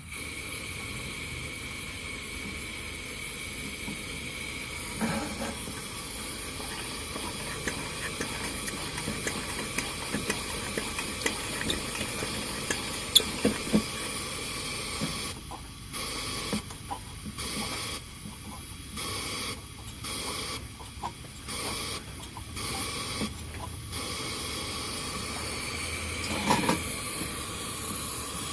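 Coleman 502 single-burner camp stove running on its first burn after rebuilding: the pressurized white-gas burner gives a steady hiss with scattered crackles. In the second half the hiss drops out briefly about eight times, and a louder crackle comes near the end.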